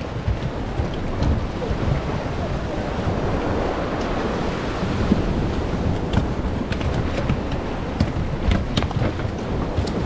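Wind buffeting the microphone over rough sea, with waves churning and surf breaking, a steady heavy rumble throughout. A few sharp clicks or knocks come in the second half.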